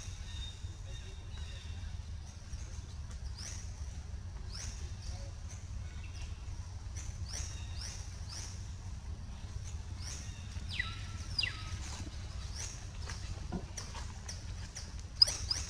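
Young long-tailed macaques giving repeated short, high-pitched squeaks, with one longer squeal about eleven seconds in, over a low steady rumble.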